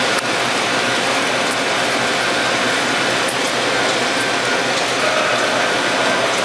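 Heavy industrial machinery running with a steady, dense mechanical clatter and rattle, with faint ticks now and then.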